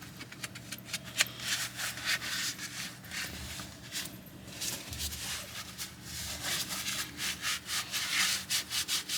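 Brake dust being scrubbed by hand off the steering knuckle around the wheel-hub bore and ABS sensor: a quick, irregular series of rubbing strokes on metal.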